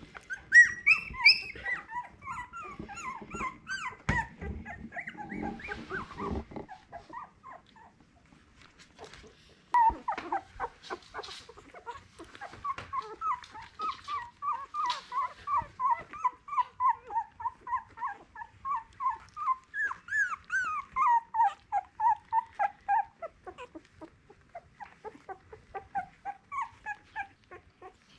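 Two-week-old Miniature Australian Cattle Dog puppies whimpering and squealing in short, high cries, with some rustling during the first six seconds. After a brief lull the cries come as a rapid, regular run of about two or three a second from about ten seconds in, then thin out near the end.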